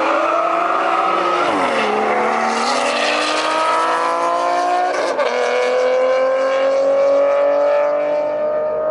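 Cars accelerating hard at full throttle in a drag race. The engine pitch climbs through the revs and drops at gear shifts about a second and a half and five seconds in, then rises slowly in a high gear.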